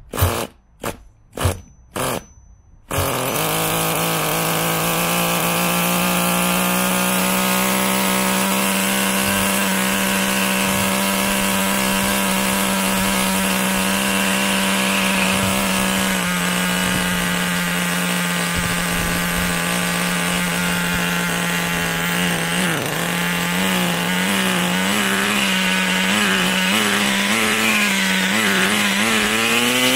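Small two-stroke nitro glow engine of an RC monster truck, glow igniter on its plug. It fires in several short bursts, catches about three seconds in and then idles steadily. Later its pitch wavers, and near the end it rises briefly and drops back, like a throttle blip.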